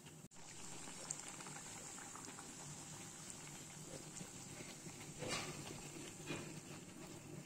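Hot oil sizzling and crackling as a bhatura deep-fries in a kadai, with a few louder crackles about a second in and again near five and six seconds.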